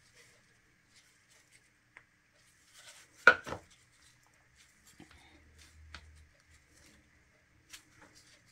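Gloved hands setting a cardboard cake circle onto a Frostform base plate and sliding it into place: light scrapes and taps, with a sharp knock and a smaller second one about three seconds in.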